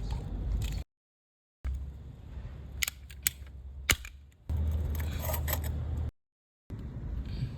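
Hands-on plumbing work on PPR pipe: a few sharp clicks and snaps of tools and plastic pipe over a low rumble, broken twice by abrupt dead-silent gaps.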